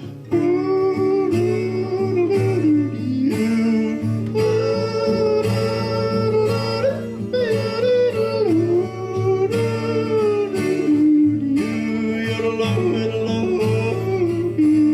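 A man yodeling a wordless refrain in long held and sliding notes, accompanied by a strummed guitar.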